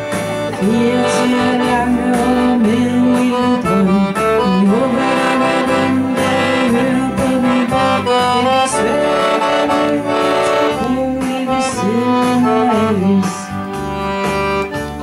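A woman singing into a microphone, accompanied by a chromatic button accordion playing chords over a regular, repeating bass line.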